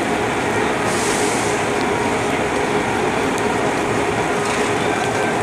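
LHB passenger coaches of a departing express train rolling along the track with a steady, loud rumble of wheels on rail. There is a brief high hiss about a second in.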